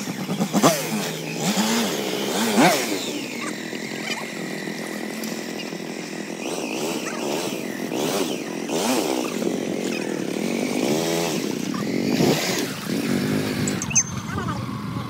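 Suzuki V-Strom SX 250's single-cylinder engine revved up and down again and again while the bike is stuck in a mud pit and is being pushed free. The revving is sharpest in the first few seconds.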